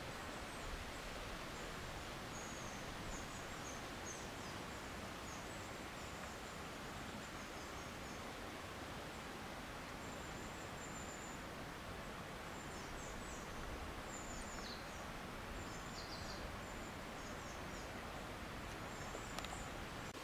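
Outdoor woodland ambience: a steady, even background hiss with faint, high, short bird chirps scattered throughout.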